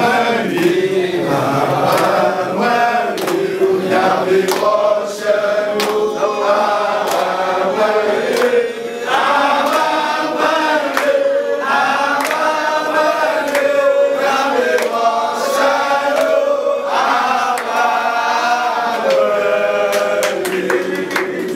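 Several voices chanting a song together, with frequent sharp claps or knocks over it.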